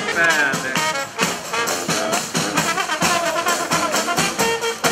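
Brass band playing in the street: horns holding and changing notes over a fast, steady drum beat.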